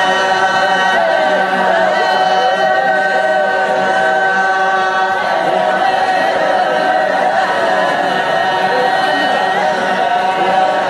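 Wodaabe dancers chanting together a capella: many voices holding long, overlapping notes in a steady group chant.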